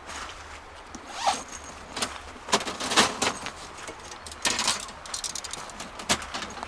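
A zipper pulled in several short, quick strokes.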